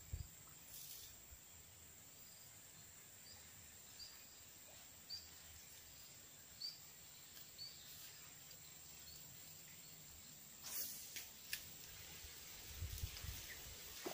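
Faint outdoor ambience: a steady high insect drone with a run of short, high, rising chirps repeating every second or less. A couple of sharp clicks come about eleven seconds in, and a few low thumps near the end.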